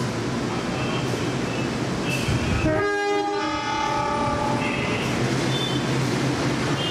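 Diesel locomotive running as it pulls a passenger train slowly into the station, with its engine drone and wheel rumble. A little under three seconds in it sounds its horn, one chord-like blast lasting a second or two.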